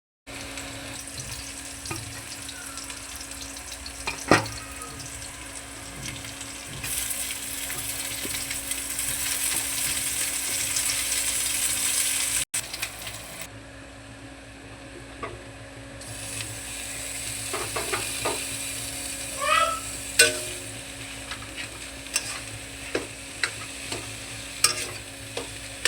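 Aloo paratha cooking in a hot pan: oil sizzling, growing louder midway and cutting off suddenly about halfway, then a quieter sizzle with scattered clicks and taps of a spatula against the pan.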